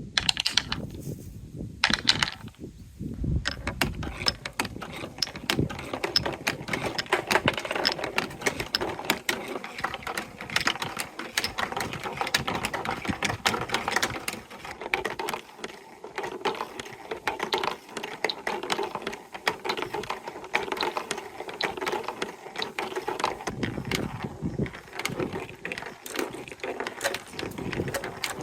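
Marbles rolling and clattering down a plastic TrixTrack marble run, a dense, continuous rattle of quick small clicks with a rolling rumble under it.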